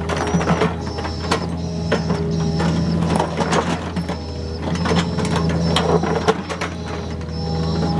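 Komatsu PC45 mini excavator's diesel engine running steadily while its steel bucket digs into broken road rubble, with repeated clanks and knocks of rock and metal. A high whine comes and goes over the engine.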